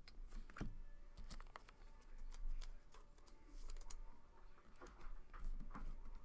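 Trading cards being handled, flicked through and set down on a table: scattered light clicks and taps of card stock at an uneven pace.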